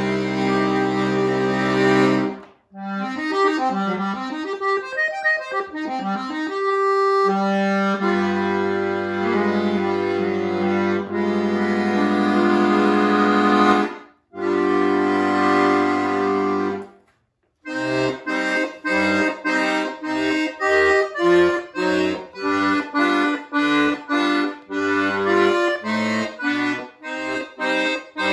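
Solo chromatic button accordion playing. It opens with held chords and fast running passages, then long sustained chords over deep bass notes. After two short pauses it moves into short detached chords, about two to three a second, over bass notes.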